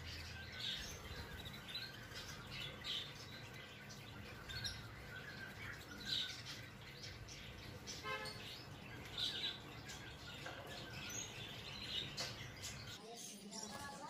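Budgerigars chirping and chattering in short, scattered calls over a low steady hum that drops away near the end.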